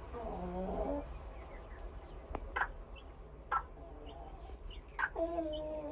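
Chickens vocalizing: a hen gives a pitched call in the first second and a drawn-out call near the end, with a few short, faint high peeps between.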